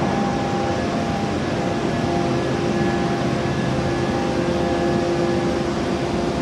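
Steady machinery hum of a hot forging line, with a few steady tones over an even noisy background and no press blows.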